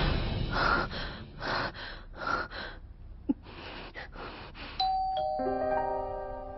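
A woman's heavy breathing in short gasps, roughly one a second, with a single click midway. About five seconds in, a chime of several ringing tones starts, the notes entering one after another and sustaining.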